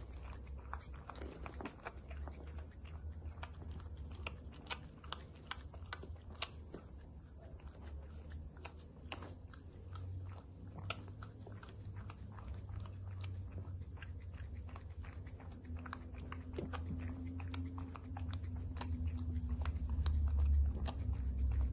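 Small dog licking and lapping whipped cream from a paper cup: an irregular run of quick wet clicks and smacks, several a second, over a low rumble that gets louder near the end.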